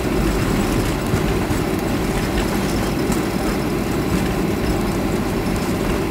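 Steady low rumble inside the cabin of a Boeing 737-300 rolling along the runway just after landing: its CFM56 engines running and its wheels rolling on the pavement.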